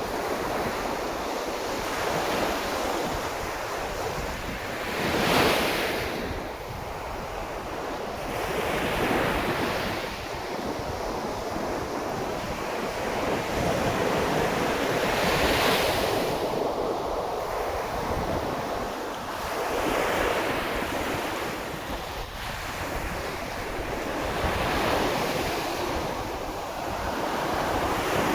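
Sea of Japan surf breaking on the shore in a continuous wash that swells and falls every few seconds, with the strongest surges about five and fifteen seconds in.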